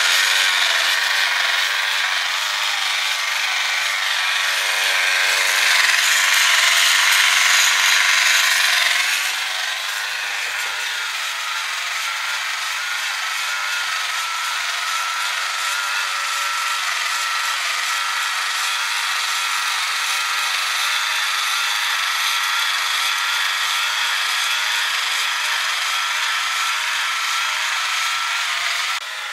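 Battery-powered toy truck's small electric motor and plastic gear train whirring and grinding steadily as all sixteen geared wheels turn, running on a cracked main gear that has been glued back together. The whirring is louder for about the first nine seconds, then settles slightly quieter.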